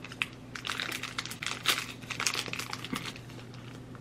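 Crinkling of a small plastic snack pouch being handled: a dense run of crackles that thins out after about three seconds.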